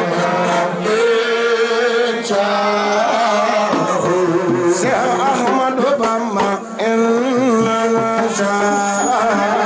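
A voice singing a melismatic devotional chant, the melody winding up and down over a steady low held tone.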